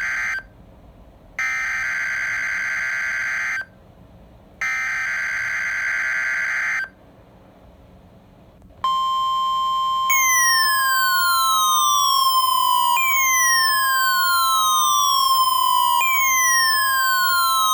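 NOAA Weather Radio Emergency Alert System test signal: three bursts of the SAME digital header, harsh warbling data tones about two seconds each with a second of silence between, then the steady 1050 Hz warning alarm tone starts about nine seconds in. From about ten seconds, falling siren-like sweeps repeat every three seconds over the steady tone.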